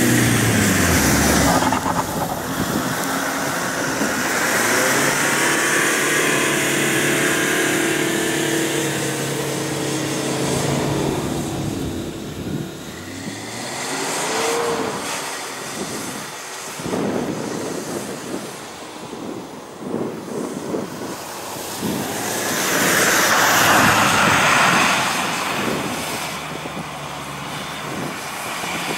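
Four-wheel-drive SUV engine working hard under load in deep snow, its pitch holding then rising and falling as the driver works the throttle. Near the end a louder rush of spinning tyres churning wet snow and slush joins the engine.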